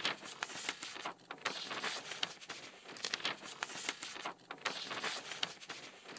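Sheets of paper rustling and crinkling as they are handled and shuffled, an irregular crackle that goes on throughout.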